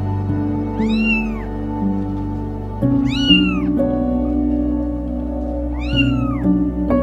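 Young kittens meowing: three high meows, each rising then falling in pitch, spaced about two and a half seconds apart.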